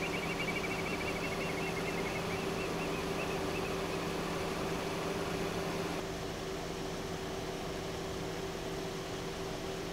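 Vehicle engine idling, a steady low hum. A high warbling chirp fades out in the first few seconds.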